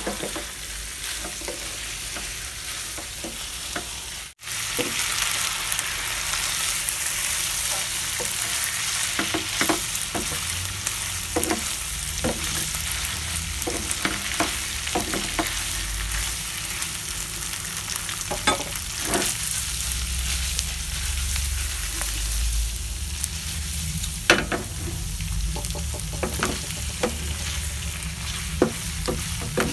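A beef udon stir-fry sizzling in a nonstick frying pan while a wooden spatula stirs it, with many short clicks and scrapes of the spatula against the pan. The sound drops out for a moment about four seconds in, and the sizzle is louder after it.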